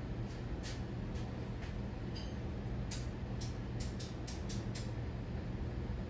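Hunter Stratford 52-inch ceiling fan running with a steady low motor hum, with a few light, irregular clicks, mostly around the middle.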